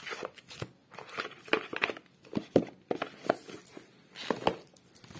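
A deck of oracle cards shuffled by hand: irregular papery snaps and clicks as the cards slap and slide against each other.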